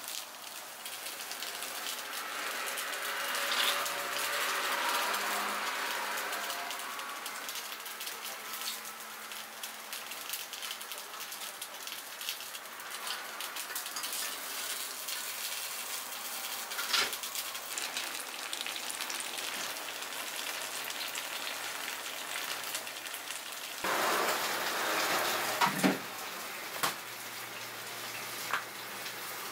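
Oil sizzling steadily in a cast-iron takoyaki pan as the batter balls fry, with a few sharp clicks.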